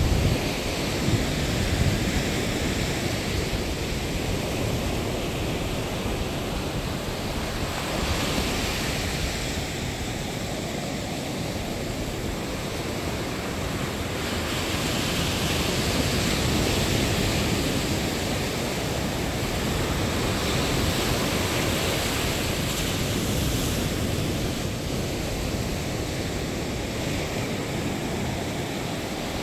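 Sea surf washing onto a sandy beach: a continuous rushing hiss that swells and eases every several seconds, with wind rumbling on the microphone underneath.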